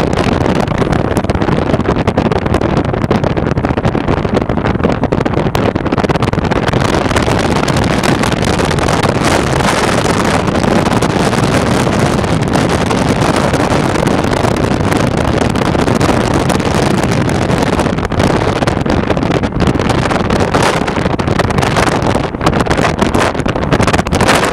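Steady rush of wind and road noise from a car travelling at high speed, about 120 km/h, with wind buffeting the microphone at the window.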